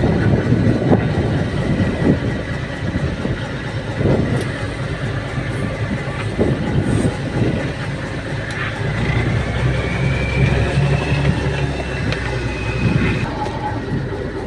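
Boat engine running steadily. It grows louder with a slight rise in pitch for a few seconds past the middle, then settles back.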